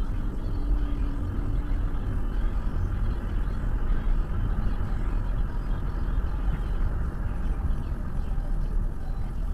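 Steady road and engine noise of a car cruising at highway speed, heard from inside the cabin.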